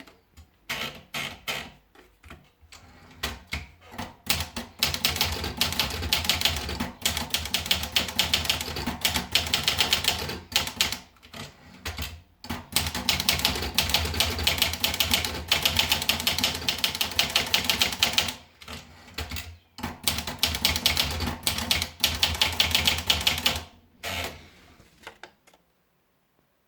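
Olivetti Lettera 35 manual portable typewriter being typed on quickly, with a fast clatter of keystrokes in three long runs broken by short pauses. It stops shortly before the end.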